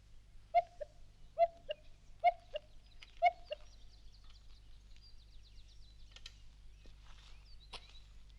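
A bird calls a falling two-note hoot four times, about a second apart. Fainter high twittering birdsong follows.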